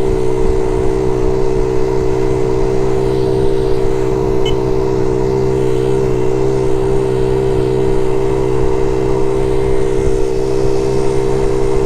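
Honda Z50J monkey bike's small single-cylinder four-stroke engine running steadily under way, holding an even note with a brief slight dip in pitch about six seconds in.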